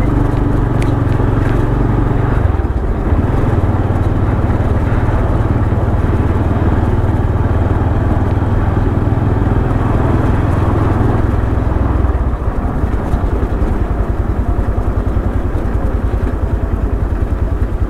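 Motorcycle engine running as the bike rides along. About twelve seconds in, the engine note drops to a slow, even beat, as if the bike eases off to a low-speed putter.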